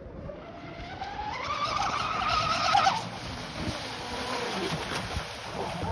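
RC twin-hull catamaran boat running fast on the water: a high whine that rises in pitch as it speeds up and approaches, is loudest about three seconds in, then drops lower as it passes and pulls away.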